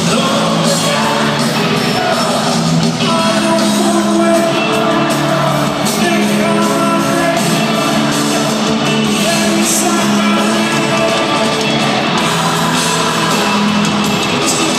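Live rock band playing in an arena, with electric guitars under a lead singer and the crowd shouting along.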